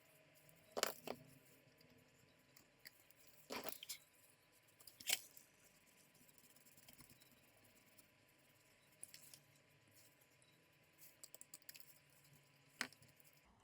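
Quiet bench-work handling sounds: a few short sharp clicks and brief scrapes several seconds apart, from trimming and shaping hardened hot glue over a laptop hinge with a blade.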